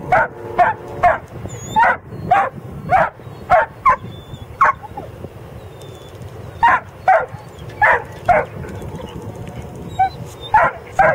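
A dog barking, about sixteen short barks in three runs with pauses of a second or two between them, over a low steady rumble.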